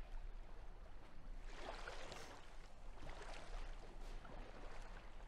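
Shallow water lapping and trickling over pebbles, coming in soft surges.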